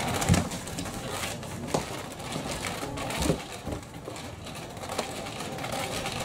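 Motorised cat toy whirring steadily under its fabric skirt as it sweeps its mouse lure around, with a few thumps of a cat dashing on a wooden floor. The loudest thump comes just after the start.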